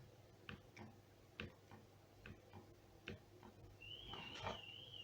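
Faint, irregular clicks of calculator keys being pressed, about every third to half second. A wavering high tone begins near the end.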